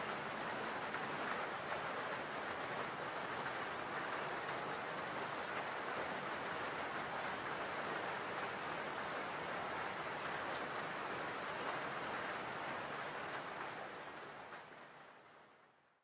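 Steady rainfall, an even hiss of rain that fades out over the last couple of seconds.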